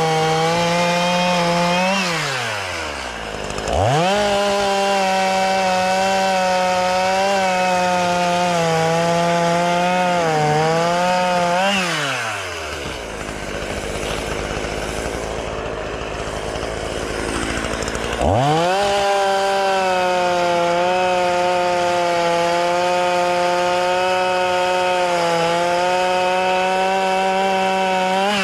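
Two-stroke chainsaw with a tungsten-carbide chain running at full throttle while cutting through thick-barked ironbark, a high, steady engine note. The revs drop and recover near the start, fall to idle for several seconds midway, then climb back to full throttle and drop away at the very end.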